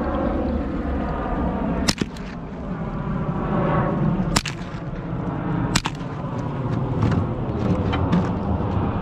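.22 rifle fired three times, about two seconds into the sound and then twice more roughly a second and a half apart, with a few lighter clicks near the end. Underneath, a boat's surface-drive mud motor runs steadily.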